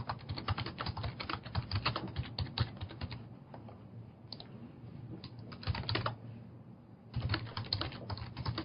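Fast, irregular typing on a computer keyboard that eases off for a couple of seconds in the middle and then picks up again, over a low steady hum.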